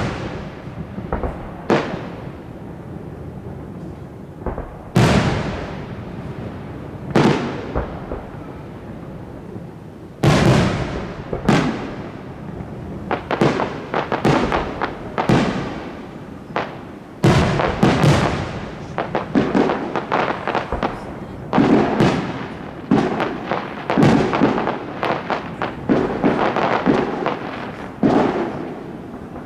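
Aerial fireworks shells bursting overhead, each bang trailing off in a long echo. A few single bursts come a couple of seconds apart at first, then from about ten seconds in the bangs come thick and fast with crackling between them.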